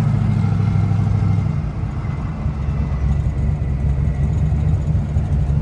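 Twin-turbo race car engine heard from inside its cabin, a steady low drone while driving. Its note drops about a second and a half in as the revs fall from around 1,800 rpm toward about 1,000.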